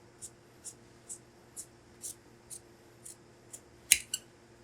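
Tailor's shears cutting through coat fabric: a steady run of short snips, about two a second, ending in two sharper, louder clacks.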